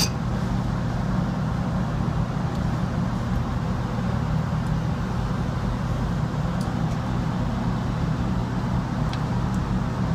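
Steady low machinery drone with a constant hum, unchanging throughout; a single sharp click right at the start.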